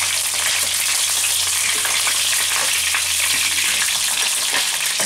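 Sweet sausages frying in hot oil in a pan, sizzling steadily.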